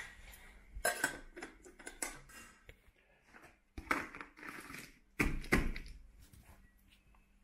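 Crinkling and rustling of a foil-faced bubble-insulation pot cozy being fitted over a saucepan. It comes in several short bursts, the loudest about five seconds in.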